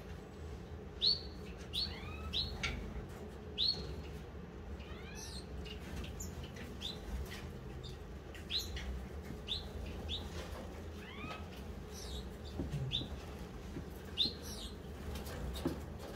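Gouldian finches calling: short, arching chirps repeated irregularly about once a second, over a low steady hum.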